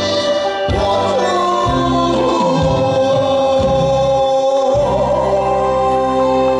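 Male singer singing into a handheld microphone over instrumental backing, holding long notes.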